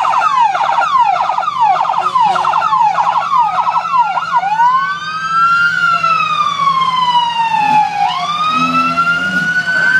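Electronic sirens of passing emergency vehicles, several sounding together: fast yelp sweeps for the first four seconds or so, then a slow wail that falls and rises again about two seconds before the end.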